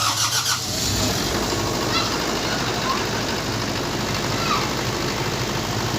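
Generator set's engine running steadily, a continuous loud drone with a low hum and fast even pulsing underneath.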